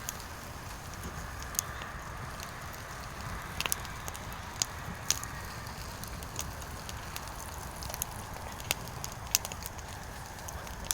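Firewood burning, with a steady low rush and irregular sharp crackles and pops about once a second.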